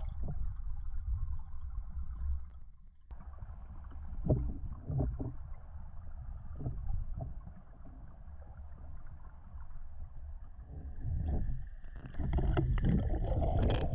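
Muffled underwater rumble picked up by a submerged camera as a diver swims, with a few soft knocks and swishes of movement. The sound briefly drops out about three seconds in and grows louder near the end.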